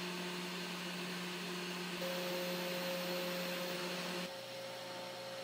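Desktop CNC milling motor running unloaded at about 10,700 rpm, a steady hum. About four seconds in it changes abruptly to a quieter, lower steady hum.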